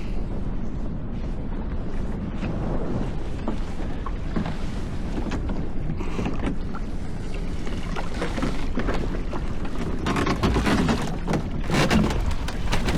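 Steady low rumble on a small open fishing boat at sea, with wind on the microphone. About ten seconds in, a run of knocks and rattles as a lobster pot is hauled aboard.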